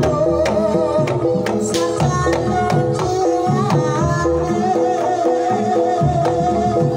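Banyumasan tayub music played live: a kendang hand drum beats quick, busy patterns over steady notes from struck tuned-bar instruments, and a female sinden's voice holds a wavering sung line through the second half.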